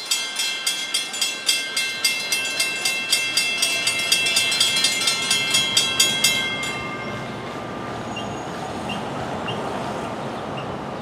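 Railroad grade crossing bell ringing at about three strikes a second, stopping about six and a half seconds in; steady street traffic noise continues after it.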